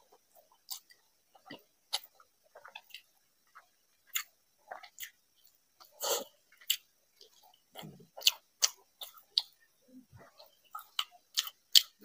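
Close-miked eating by hand: chewing with wet mouth clicks and smacks, and fingers working rice and curry, heard as irregular short clicks that come thicker and louder in the last few seconds.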